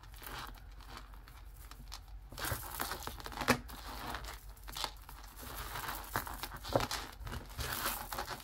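Strands of small glass seed beads rustling and clicking against each other as a multi-strand necklace is handled and untangled, with a few sharper clicks.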